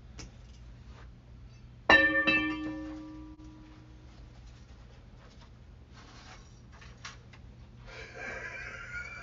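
A piano-like chord struck suddenly about two seconds in, struck again just after, ringing and fading away over about two seconds, over a steady low hum. A louder, busier stretch of sound builds near the end.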